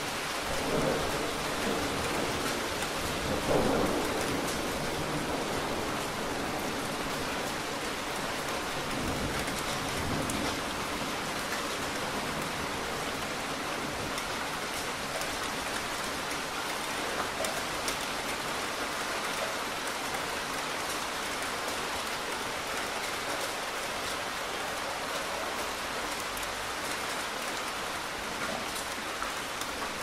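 Steady, heavy rainfall in a rain storm, with low rumbles of thunder swelling in the first few seconds and again around ten seconds in.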